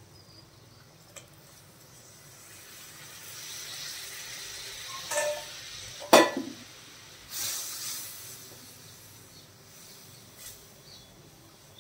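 Hot jaggery syrup hitting ghee-roasted wheat flour in a brass kadai, sizzling and hissing, with the hiss swelling and a second burst of hiss about seven seconds in. A sharp metallic clink about six seconds in is the loudest sound, with a smaller knock just before it.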